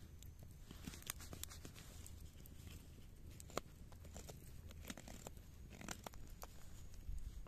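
Ahti Vaara puukko knife whittling a wooden stick: faint, irregular scraping strokes and sharp little clicks as the blade takes shavings off the wood, one click a little past the middle louder than the rest.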